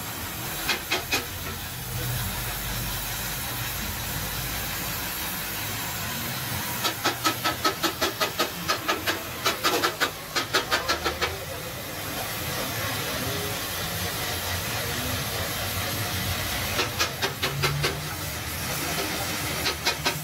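Gas welding torch hissing steadily as it welds a steel two-stroke exhaust expansion chamber. Runs of sharp, rapid tapping, about five a second, come in short spells and are the loudest sound: once early, for a few seconds around the middle, and again near the end.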